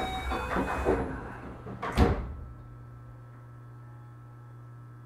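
Sliding passenger doors of a Keio 8000 series train closing, shutting with a single thump about two seconds in, then a steady low hum from the standing train.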